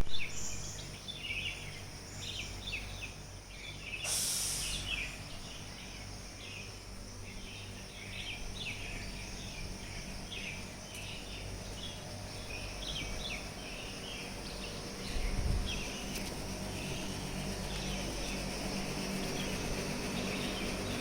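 Birds chirping over and over in quick short calls, over a steady low rumble, with a brief hiss about four seconds in.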